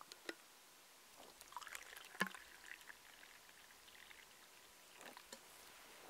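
Tea poured from a thermos into its steel cup: a faint trickle, with a few small clicks and one sharper click about two seconds in.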